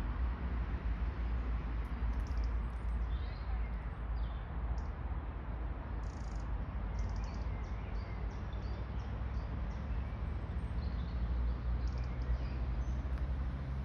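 Steady outdoor background noise with a low rumble, and a few faint, short high chirps now and then.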